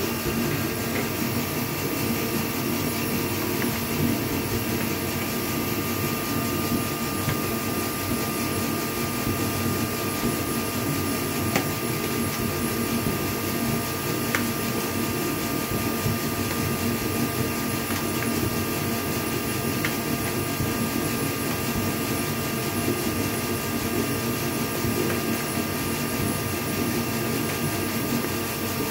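Steady machine hum, with a few faint, scattered metallic clicks from a wrench turning a bolt to flare a rivnut in a car's sheet-metal body.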